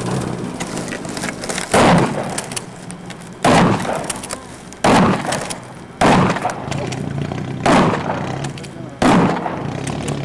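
Six shotgun shots at roughly one-and-a-half-second intervals, fired from a moving jeep. The jeep's engine runs steadily under them.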